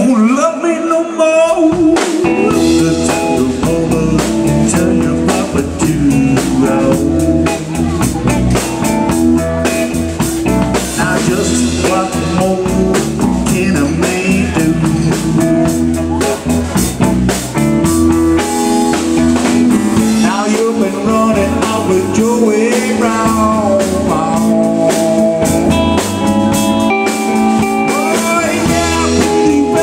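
Live blues-rock band playing: electric guitar, electric bass and drum kit, with some singing. The bass and drums are out for the first second or so, then the full band plays on.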